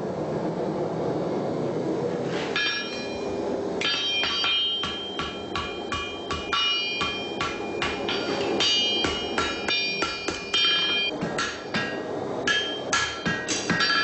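Steel hammer striking a horseshoe on an anvil, a farrier shaping the shoe. About two and a half seconds in, a quick run of ringing metallic blows begins, several a second, and it keeps going, after a short spell of steady noise.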